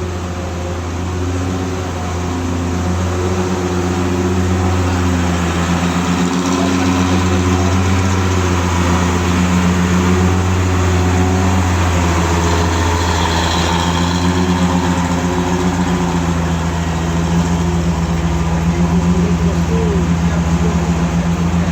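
Heavy truck's diesel engine running with a steady low drone, growing louder over the first several seconds and then holding.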